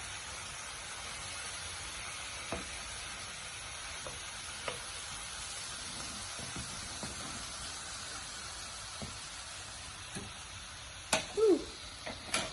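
Oil sizzling steadily, with a few light clicks of a utensil and a couple of louder knocks near the end.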